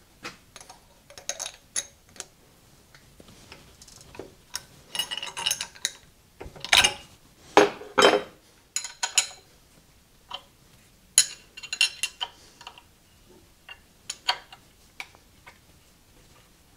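Scattered metallic clinks and clicks of a wrench and small steel parts being handled and tightened on a metal lathe's indexing setup, a few louder clanks in the middle.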